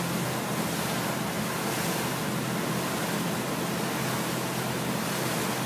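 Powerboat running steadily underway: a constant low engine hum under a rush of wind and water.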